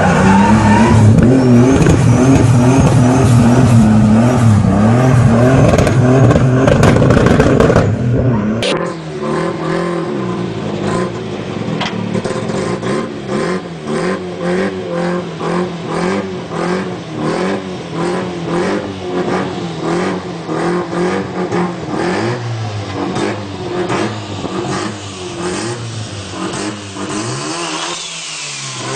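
An engine-swapped Volvo 240 revving hard as the car slides. After a sudden cut about nine seconds in, a Honda Civic's swapped-in Mazda rotary engine idles with a choppy, rhythmic lope.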